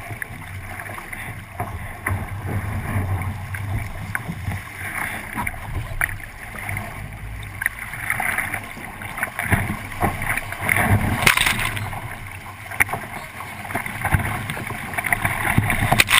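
Water rushing and splashing along the hull of a 29er sailing skiff moving fast under sail, with wind buffeting the boat-mounted microphone. Louder surges of spray come about eleven seconds in and again at the end.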